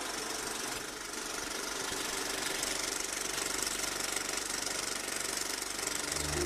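Film projector running with a fast, even mechanical clatter. Low music notes come in near the end.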